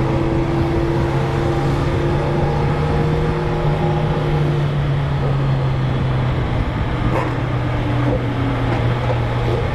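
Sport motorcycle engines with straight-through 4-into-1 exhausts running at a steady, loud pitch that settles slightly lower about two-thirds of the way through.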